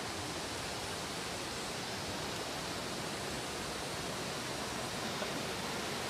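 Steady, even rush of a waterfall pouring into a pool.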